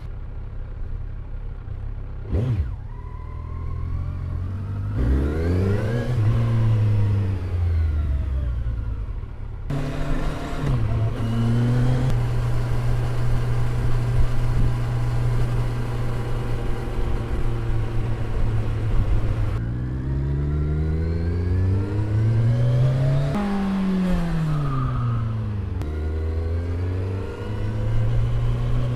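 Kawasaki Ninja 1000 inline-four engine idling through its exhaust, with a few throttle blips whose pitch rises and falls back to idle.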